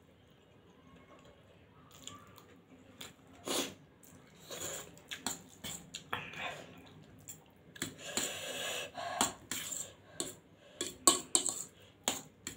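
Metal fork clinking and scraping on a stainless steel plate as noodles are gathered and twirled, in irregular sharp clicks with short scraping stretches, starting about two seconds in and loudest near the end, with chewing sounds between.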